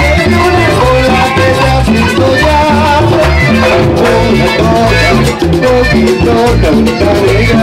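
Loud Latin dance music in a salsa style: a steady repeating bass line with a melody gliding above it.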